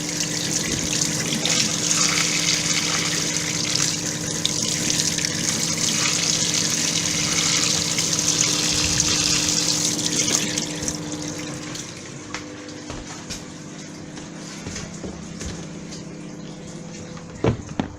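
Water running from a tap as apples are washed under it, a steady hiss that stops about eleven seconds in, leaving a faint steady hum. A single knock comes just before the end.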